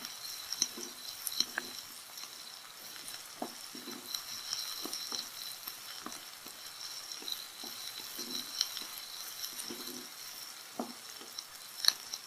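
Chopped onion and garlic frying in a little oil over a high flame, sizzling steadily, with scattered clicks of a spoon knocking the pan as they are stirred.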